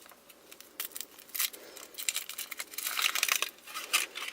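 Thin foil wrapper of a Kinder Surprise chocolate egg crinkling and crackling as it is peeled off by hand, in quick irregular bursts that grow busier past the middle.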